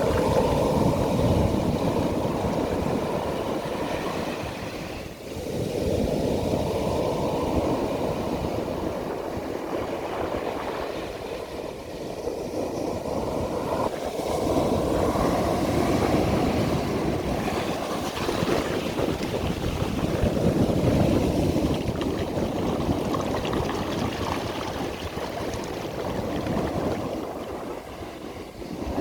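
Sea waves breaking and washing up a beach, in surges that swell and fade every five to nine seconds.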